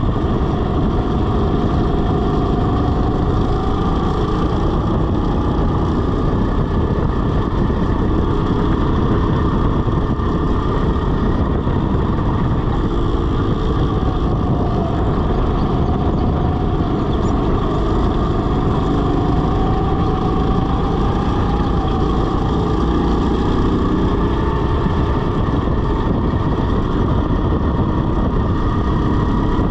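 Rental go-kart running at speed around a track: a loud, steady mix of motor and road noise, with a whine that glides up and down as the kart speeds up and slows.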